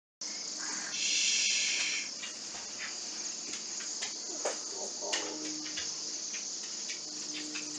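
A large flock of Bohemian waxwings calling together: many high, thin trills blending into a steady chorus, loudest about a second in.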